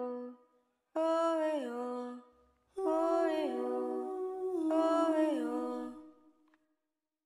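A female voice humming a wordless melody in three phrases, each long note held and then stepping down in pitch. It stops about six seconds in.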